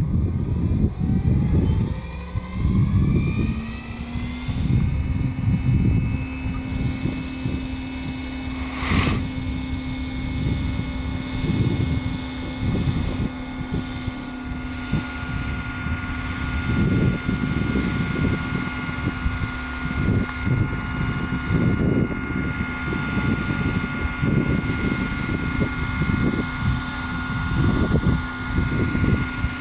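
Scale RC model Bell 429 helicopter spooling up: a rising whine that levels off after about four seconds, then a steady high whine with rotor noise as the rotors run at speed. One sharp click about nine seconds in.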